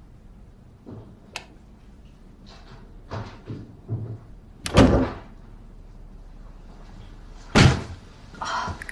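A few scattered short knocks, then two louder thumps about five and seven and a half seconds in: household objects or a door being handled.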